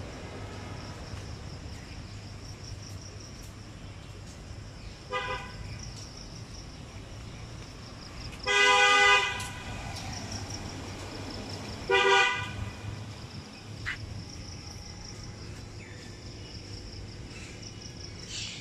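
A vehicle horn honks three times: a short toot about five seconds in, a loud blast of nearly a second near the middle, and a shorter one a few seconds later.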